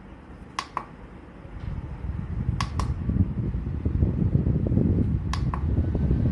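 Rechargeable desk fan running while its button is clicked three times, each a quick double click of press and release. After the second click its air rumbles louder against the microphone.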